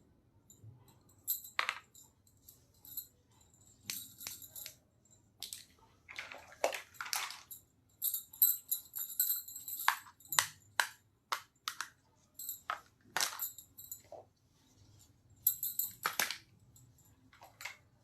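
Small plastic toy pieces of a miniature doctor set being handled: irregular clicks, taps and short rattling rustles, some with a bright, jingly ring.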